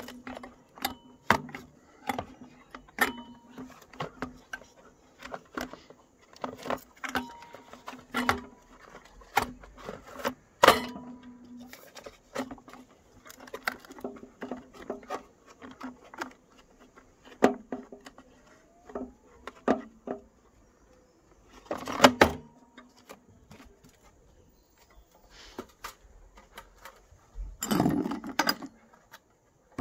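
Irregular plastic clicks and knocks from the housing and gear-tray mounts of a Philips Iridium street light being handled with gloved hands, with a loud cluster of knocks about two-thirds of the way through. Near the end comes a longer rustling noise.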